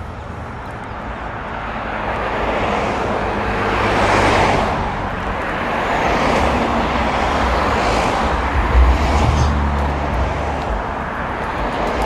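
Road traffic going by, several vehicles passing one after another, with a heavier vehicle's low engine rumble about nine seconds in.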